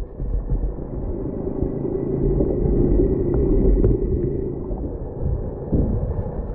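Muffled, steady underwater rumble and water noise, recorded by a camera held below the surface, with the high end cut off.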